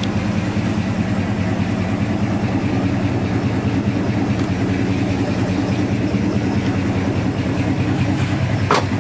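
1968 Pontiac GTO's V8 engine idling steadily, with a single sharp click just before the end.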